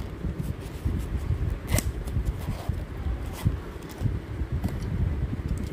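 Hands handling and working open a small round zippered coin purse: an uneven low rumble of handling noise with a few sharp clicks, the clearest about two seconds in and another about three and a half seconds in.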